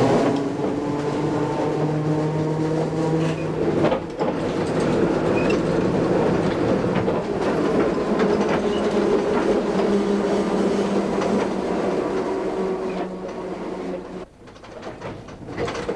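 Electric tram running on rails: a steady motor hum of several tones that shifts pitch now and then, over rattling wheel noise. The sound dips briefly about four seconds in and falls away near the end.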